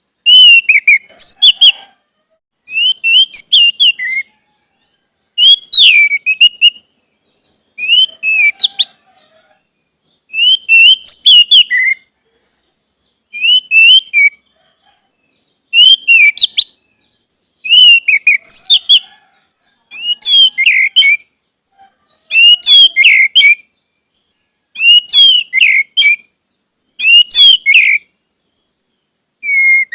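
Orange-headed thrush song: loud, varied whistled phrases, each about a second and a half long, repeated about every two seconds with short silent gaps. Right at the end a quick run of short notes on one pitch begins.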